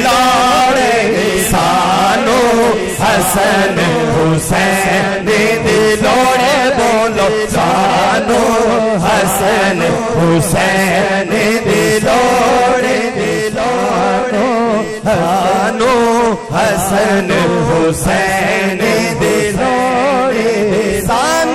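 Devotional Punjabi qasida music: a chanted male vocal line, sung with bending pitch, over a rhythmic accompaniment.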